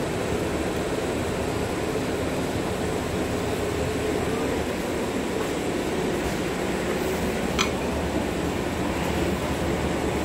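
Steady hum and rumble inside a 71-631-02.02 low-floor tram car, with a single sharp click about seven and a half seconds in.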